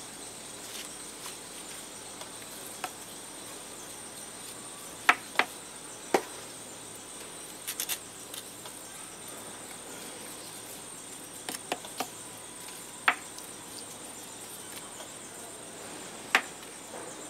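A small hand trowel working soil in a glazed ceramic pot, giving short sharp clicks and taps every few seconds as it knocks the pot and scrapes the soil. A steady high-pitched insect trill, like crickets, runs underneath.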